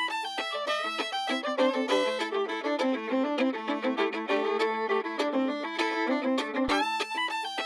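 Background music: a fiddle tune with quick, busy notes over a steady held low tone.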